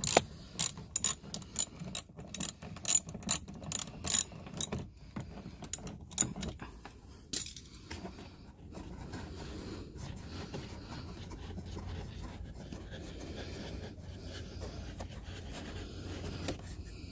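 Ratchet wrench with a 10 mm socket clicking about three times a second as it backs out a door-panel screw. The clicking stops about five seconds in, a few single clicks follow, and then there is only a low, steady background rumble.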